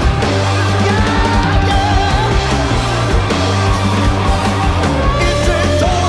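Loud rock music with electric guitar and a steady heavy bass, with a lead line that bends in pitch.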